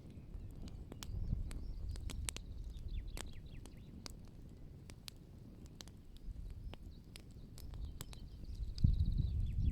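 Wood fire crackling, with irregular sharp pops and snaps. A low rumble swells about a second in and again near the end.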